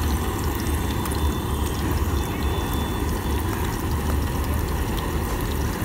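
Egg frying in oil in an aluminium pan, sizzling steadily with small crackles, over a steady low rumble.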